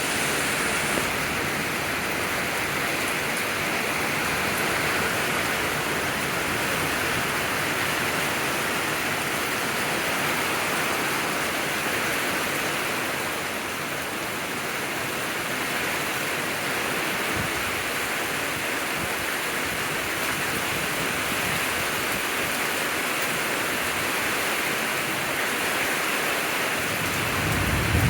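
Steady rain falling in a thunderstorm, an even hiss, with a low rumble of thunder building near the end.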